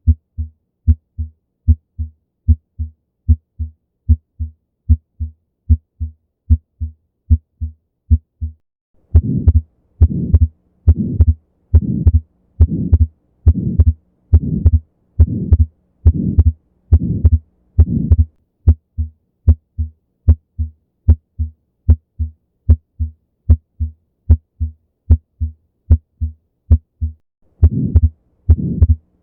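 Human heart sounds heard on auscultation, an even lub-dub at about seventy beats a minute. For the first nine seconds the beats are clean and low. From about nine seconds they turn louder and rougher, with a murmur of an atrial septal defect (ASD) filling in around them. The clean beat returns at about eighteen seconds, and the murmur comes back near the end.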